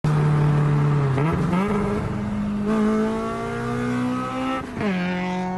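Car engine revving hard under acceleration. Its pitch jumps up a little over a second in and then climbs steadily, and about five seconds in it drops sharply as the car shifts up a gear.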